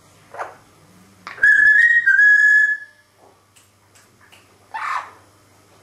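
A parrot whistling one long, clear note that steps slightly up and back down, with a short raspy call just before it and another near the end.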